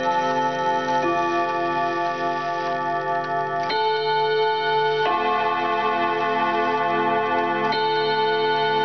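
An antique oDo ten-rod chime wall clock playing its chime: hammers strike the tuned chime rods one note at a time. Four slow notes are struck, a second or two apart, and each keeps ringing under the next, so the notes blend into a sustained bell-like chord.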